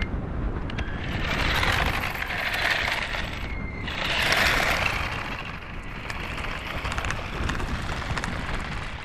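Radio-controlled toy car driving over coarse tarmac: its small electric motor and wheels make a rolling hiss that swells twice. Wind rumbles on the microphone underneath.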